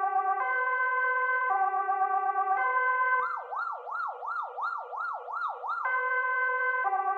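Swedish police siren sounding a two-tone hi-lo, each tone held about a second. About three seconds in it switches to a fast yelp, sweeping up and down about three times a second, then returns to the two-tone near six seconds.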